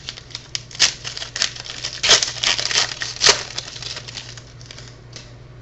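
A foil trading-card pack being torn open and its wrapper crinkled, with sharp crackles and rips, the loudest about one, two and three seconds in, dying away near the end. A steady low hum runs underneath.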